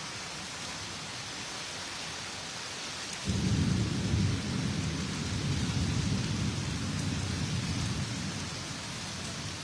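Heavy rain falling steadily on trees and a corrugated metal roof, a constant hiss. About three seconds in, a deep low rumble sets in suddenly, holds for about five seconds, then eases off.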